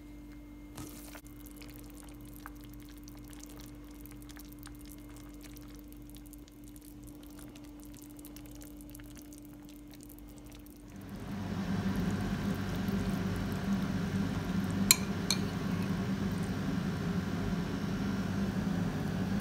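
A slow cooker's glass lid lifted with a click, then faint fine crackling of soup simmering over a steady low hum. About 11 seconds in a much louder steady noise takes over, and a few seconds later a metal spoon clinks twice against a metal pot.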